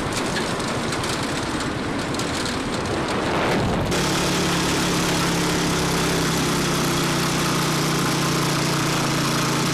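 Motorcycle engine of a passenger tricycle running steadily on the move, heard from the sidecar with road and wind noise. About four seconds in the engine note settles into a steadier, clearer low hum.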